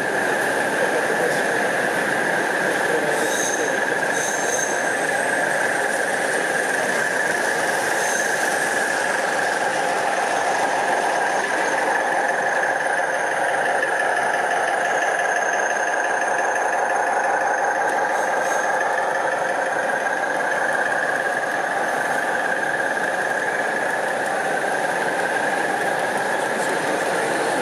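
Large-scale model trains running on the layout's track: a steady whine of wheels and drive on the rails, with a squealing edge.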